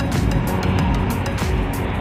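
Background music with a fast ticking beat, about four or five ticks a second, over a heavy low part.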